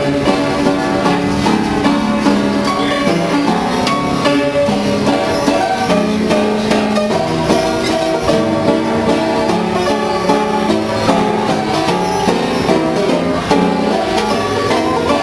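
J.P. Seeburg coin-operated piano playing a perforated paper music roll, a steady run of many quick notes. The instrument is in very poor repair, so the tune can hardly be made out.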